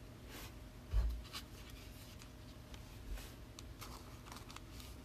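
Trading cards being handled: light sliding, rubbing and clicks of card stock against plastic sleeves and holders, with a soft low thump about a second in.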